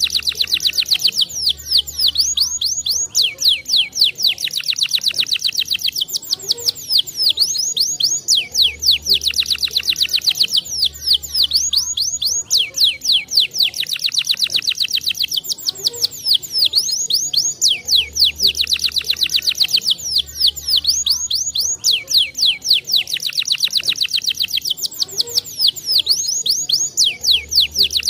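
Domestic canary singing: fast high trills and rolls in quick succession. The same run of phrases repeats about every nine seconds, as in a looped recording.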